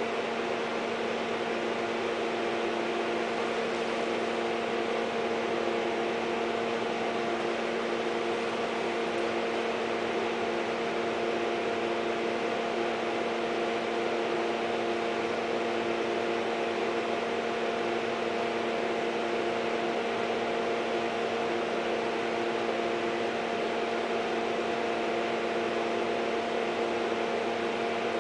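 Steady machine hum made of several held tones over an even hiss, unchanging throughout.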